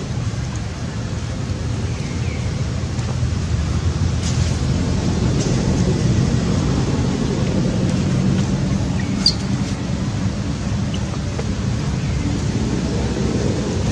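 Steady low rumbling background noise, with a few faint short squeaks from a baby macaque and a single sharp click about nine seconds in.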